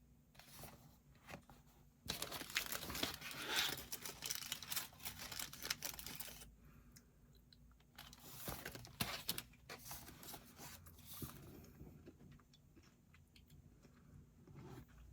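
Dry rustling and crinkling handling noise: one dense stretch of about four seconds starting some two seconds in, a second shorter stretch a little later, and scattered small clicks between.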